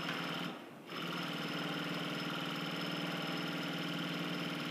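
S-310 double-face cashmere invisible-stitch sewing machine running while it stitches fabric: a brief run, a pause of under half a second, then steady running at an even speed.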